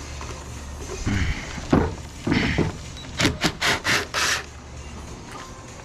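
Metal work on a stuck rusty Allen bolt in steel switchgear: a steady low hum that stops near the end, under several short rattling, scraping metal bursts, quickest around three to four seconds in.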